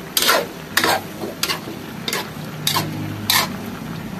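Pork intestines being stirred in a large metal wok: a utensil scrapes the pan about six times, roughly every 0.6 seconds, over a steady sizzle of frying.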